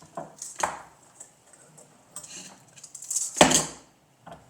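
Small metal tools and parts being handled on a workbench: scattered light clicks and knocks, with one louder metallic clatter about three and a half seconds in.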